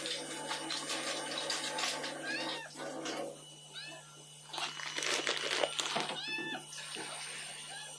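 Calico cat meowing three times, short high-pitched meows, asking for food with its bowl empty.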